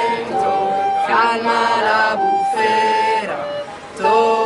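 Slow music of long held notes: a melody line over lower sustained notes, with a short drop in level about four seconds in.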